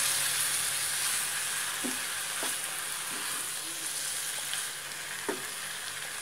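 Water spinach sizzling in a frying pan with hot oil and spice paste as it is stir-fried with a wooden spatula, with a few taps of the spatula against the pan about two, two and a half and five seconds in.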